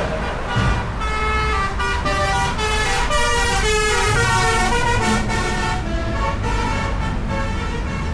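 Basuri bus's telolet horn, a multi-tone air horn, playing a tune of short notes that step up and down for about five seconds, over a low vehicle rumble.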